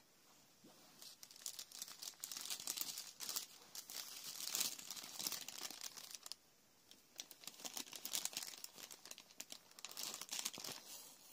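Tissue-paper sewing pattern crinkling as hands push a threaded needle through it to sew tailor's tacks. There are two spells of crinkling with a short lull about six seconds in.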